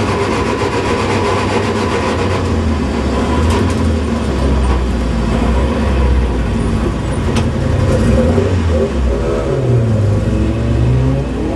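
Opel Kadett C race car's engine heard on board, running hard under load. It eases off about two and a half seconds in, then its pitch rises and falls again through the corners near the end, with a couple of sharp clicks along the way.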